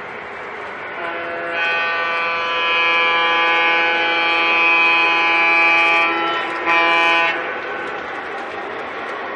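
Model diesel locomotive's sound system blowing its horn, one long blast then a short one, over the steady rolling noise of the model train on the track.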